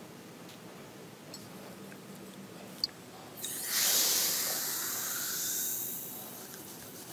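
Baking soda and water fizzing and foaming up in a glass jar as a metal cup is lowered in: a sudden hiss about halfway through that fades over the next few seconds. A single light click comes just before it.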